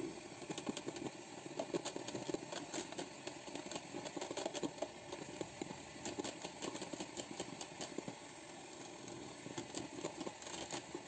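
Electric hand mixer running, its beaters whipping heavy cream with powdered sugar and clicking against the plastic jug.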